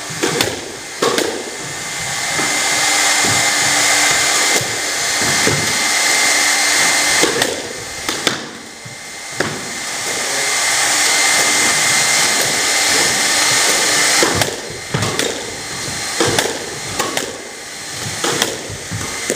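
Squash ball hit by a racket and smacking off the court walls, sharp irregular strikes over a loud, steady rushing hiss that swells and fades, dipping about eight seconds in.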